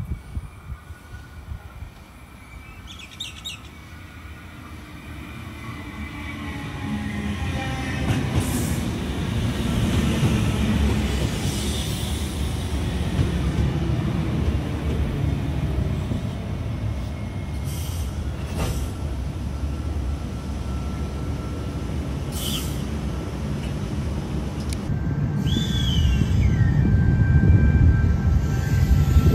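Double-deck electric passenger train approaching and running along the platform: a rumble of wheels on the rails that builds steadily and is loudest near the end, with thin high-pitched squealing tones over it. A bird chirps briefly about three seconds in.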